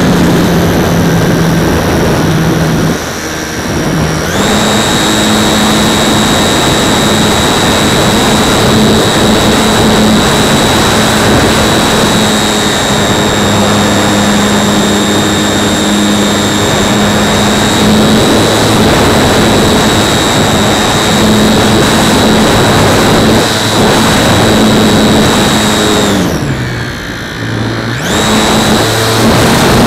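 The motor and propeller of a radio-controlled Super Cub model plane at steady throttle, heard from a camera on the airframe with air rushing past: a steady high whine over a low drone. Power is cut back briefly about three seconds in and again near the end, the drone falling in pitch, before it comes back on.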